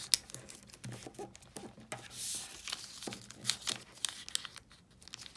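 A sheet of origami paper being folded by hand into a cupboard fold: crinkling and rustling with many short, sharp crackles as the creases are pressed flat, and a longer sliding rustle about two seconds in.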